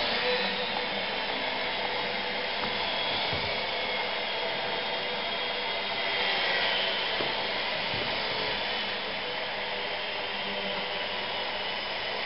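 Steady whine of Parkzone Micro Cessna RC planes' small electric motors and propellers in flight, with slight rises and falls in pitch as they fly past.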